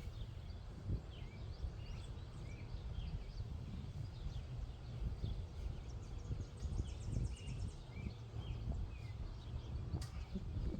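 Small birds chirping and singing over a low wind rumble on the microphone, with a fast high trill in the middle and one sharp click near the end.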